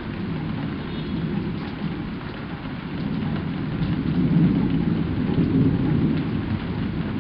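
Thunder rumbling low and long, growing louder about halfway through, over steady rain.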